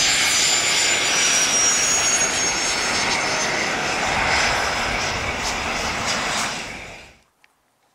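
Fairchild Dornier 328JET's twin Pratt & Whitney Canada PW306B turbofan engines running at taxi power: a steady jet rush with a thin high whine. The sound fades out about seven seconds in.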